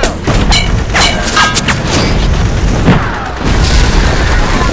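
Battle sound effects: several sharp gunshots in the first two seconds, then a short falling whine and a heavy shell explosion about three and a half seconds in.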